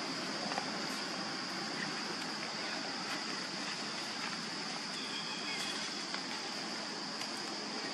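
Steady outdoor ambience: an even hiss with a constant high-pitched drone running through it and a few faint ticks.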